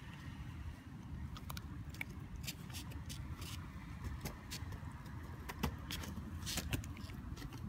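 A steady low rumble with many small clicks and rustles scattered through it, busier near the end, as a dog lying on grass shifts and moves its head.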